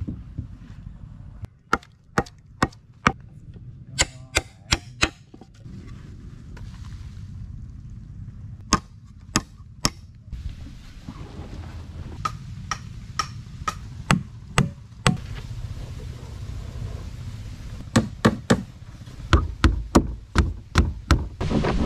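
Hand tools striking timber: sharp chopping and hammer blows on wood, some single and some in quick runs of several strikes, over a low steady rumble.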